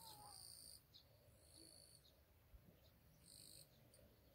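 Near silence with faint, high insect trills: about three short buzzes, a second or so apart.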